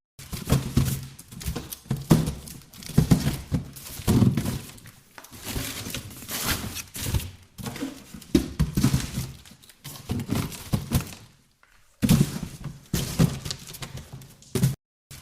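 Boxes being handled and shifted about: an irregular run of thunks, knocks and rustles as they are picked up, moved and set down. There is a pause about eleven seconds in.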